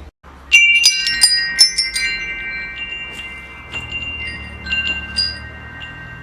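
Metal wind chimes ringing: a quick flurry of strikes about half a second in, then scattered, sparser strikes, each tone ringing on and slowly fading.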